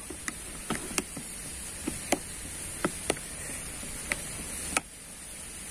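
A metal spoon pressing and scraping stiff carp-bait dough in a plastic bowl, giving irregular sharp ticks as it knocks against the bowl, about ten in all.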